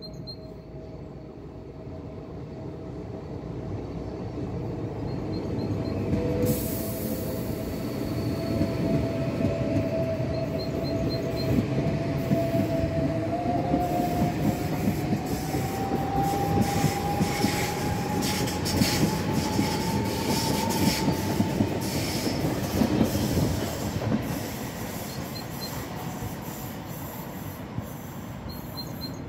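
ICE high-speed electric train running close past along the platform: a dense rumble and clatter of wheels on track, growing louder over the first several seconds and easing off near the end, with a thin whine that rises slowly in pitch.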